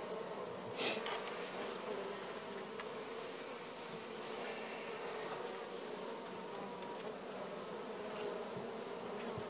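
Honeybees buzzing around an open hive, a steady hum, with one short knock about a second in.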